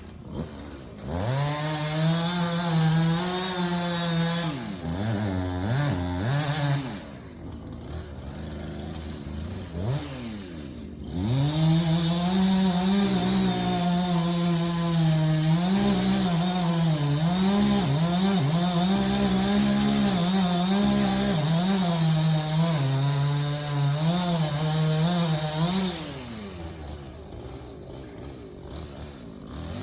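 Chainsaw revving to full throttle and cutting, its pitch dipping under load. It drops back to a lower idle twice, around seven seconds in and again near the end, before revving up again.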